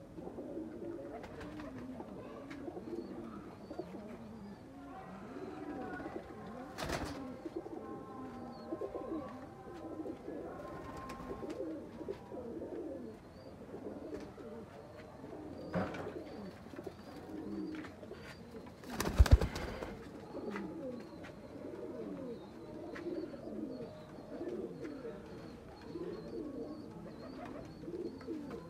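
Several domestic pigeons cooing continuously in a loft. A brief, loud burst of noise cuts across the cooing about two-thirds of the way through.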